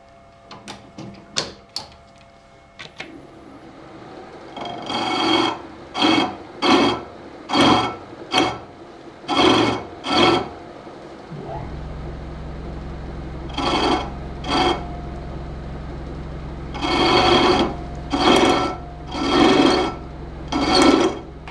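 A ball nose cutter cutting into a drilled-out stud hole in an aluminium housing in a series of short scraping strokes, each under a second, to split out leftover thread. A steady low machine hum starts about halfway through and carries on under the strokes.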